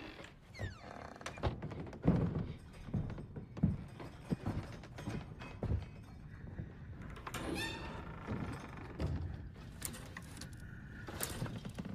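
Irregular dull thuds and knocks, with a brief squeaky sound about seven seconds in and a few sharp clicks near the end.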